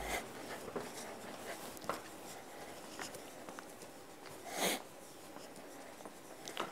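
Quiet room tone after background music cuts off at the start, with a few faint scattered taps and one brief soft swish about four and a half seconds in.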